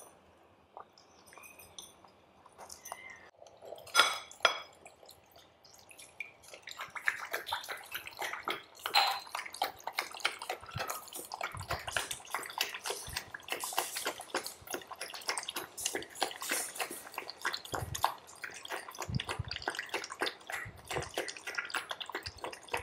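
Golden retriever puppy and kitten eating from one bowl: a dense, quick run of chewing and smacking that starts about six seconds in. Before it there is a sharp knock about four seconds in.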